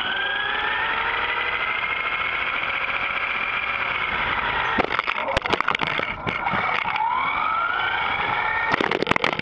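An RC car's electric motor whining, heard from a camera on the car. The whine rises in pitch as the car speeds up, then holds steady. A clatter of knocks about five seconds in marks the car crashing. The whine then rises again, and a second clatter of knocks near the end marks another crash.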